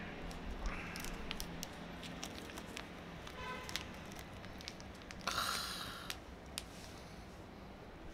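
Crinkling and crackling of a small foil snack packet being handled and torn open, with scattered sharp clicks and a louder crackle about five seconds in.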